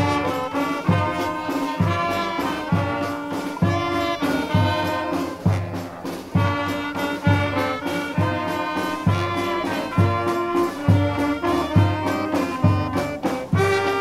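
Brass street band playing live: trumpets and trombones carry the melody over low bass notes and percussion keeping a steady beat.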